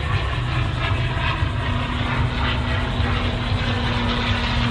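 Propeller airplane engine droning, a steady hum that comes in about two seconds in over a constant low rumble.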